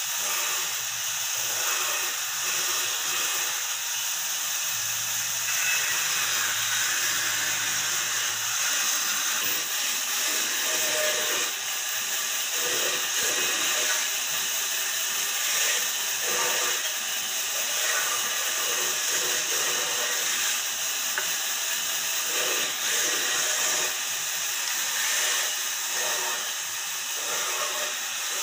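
Bandsaw running steadily while its blade cuts through wooden blocks. From about ten seconds in, the noise swells and dips in short spells as the wood is fed into the blade.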